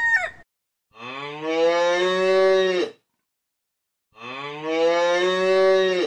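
Cow mooing twice: two long moos of about two seconds each, a second apart, each rising slightly at the start and then held. The tail end of a rooster's crow cuts off in the first half second.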